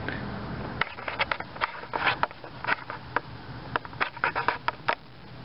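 Light handling noise: a string of irregular small clicks and taps over a faint steady background, with no motor running.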